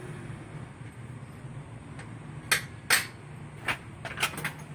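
Sharp metallic clinks and knocks of tools and parts against a stripped-down Isuzu 4JJ1 diesel engine's timing-gear case, about five of them in the second half, over a low steady hum.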